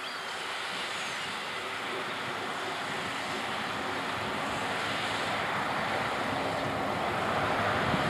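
Case IH 9230 Axial-Flow combine harvesting wheat: a steady engine and threshing drone with a faint low hum, growing slightly louder toward the end.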